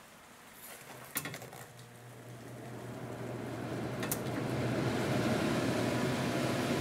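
A range hood's blower fan is switched on with a few clicks about a second in, then spins up into a steady rush of air with a low hum, building over the next few seconds. Another click comes about four seconds in as the hood's speed setting is changed.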